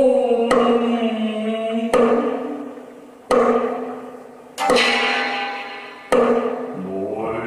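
Sharp wooden knocks of sticks, five in a steady beat about one every one and a half seconds, over a layered, held chant-like vocal drone whose pitches slide slowly; each knock is followed by a swell that fades. A lower held tone comes in near the end.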